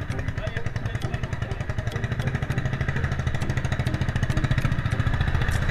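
Honda Livo 110's single-cylinder engine running with a rapid, even exhaust beat, getting slightly louder toward the end.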